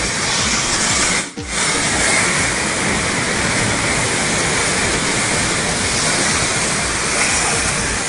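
Steady rush of breaking ocean surf, dropping out briefly about a second in.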